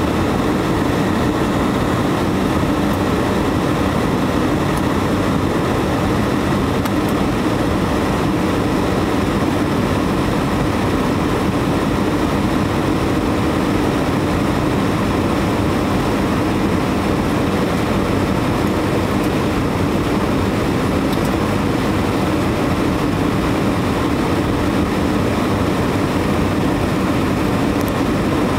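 Steady engine and airflow noise inside the passenger cabin of an Airbus A320-200 descending on approach to land, even and unchanging throughout.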